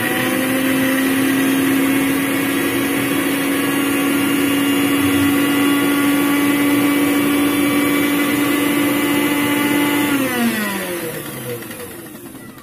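Pyramid electric mixer grinder running at full speed, grinding chopped onion to a paste in its steel jar, with a steady motor whine. About ten seconds in it is switched off and the whine falls in pitch and fades as the motor spins down.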